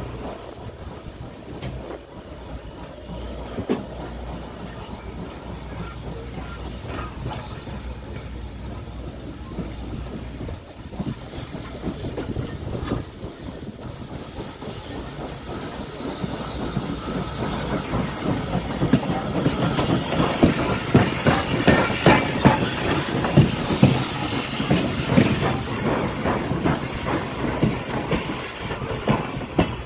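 Norfolk and Western No. 475, a 4-8-0 steam locomotive, running slowly past on its own, with clicking from wheels and running gear and hissing steam. It grows louder from about halfway through as it draws alongside.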